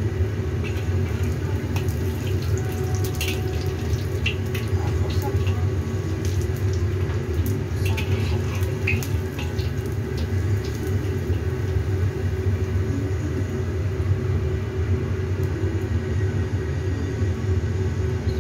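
Hot oil sizzling in a wok as battered tempeh deep-fries, with scattered crackles and light clicks, thickest in the first half, over a steady low hum.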